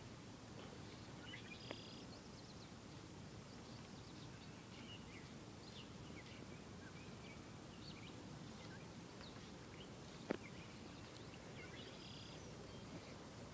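Quiet lakeside outdoor ambience: a faint steady hiss with scattered short, high bird chirps. One sharp click comes about ten seconds in.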